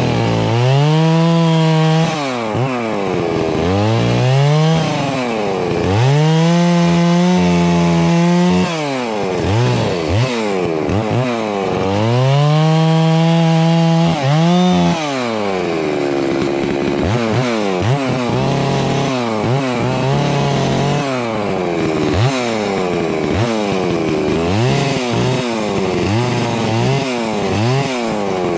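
Large two-stroke chainsaw of the Stihl MS660 type cutting through pine limbs. About four times in the first half it revs up and holds at full throttle through a cut, then drops back. After that it gives a quick run of short rev-ups and drops as it limbs smaller branches.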